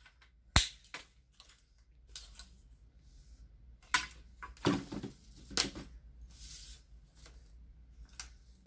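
Plastic flip locks and telescoping legs of an Onn Focus 67-inch tripod being opened and pulled out by hand. A series of sharp clicks and snaps, several bunched together midway with a brief rattle of the leg sections.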